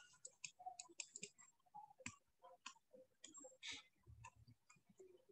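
Faint, irregular light clicks and taps of a stylus on a writing tablet as a few words are written, over near-silent room tone.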